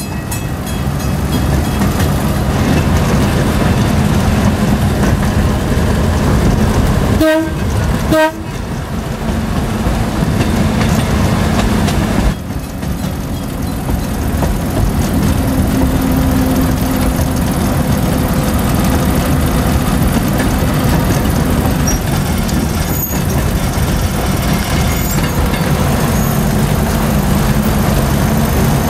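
Rio Grande Southern Galloping Goose #7 rail motorcar running along the track, heard from the cab: its engine and wheels make a steady low rumble. About a quarter of the way in, two short horn toots sound about a second apart.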